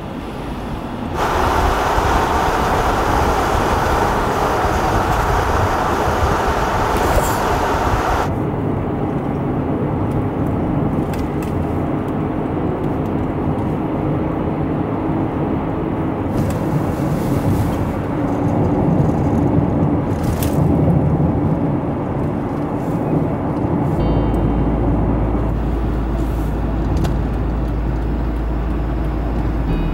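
Car driving along a road, heard from inside the cabin: a steady rumble of tyre and road noise. For several seconds near the start a louder, hissier rush joins it, then stops abruptly.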